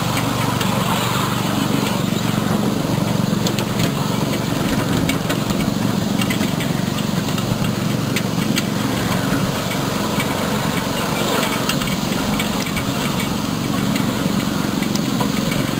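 Ride-on miniature train running along its track: a steady low rumble of the train and its wheels, with scattered clicks throughout.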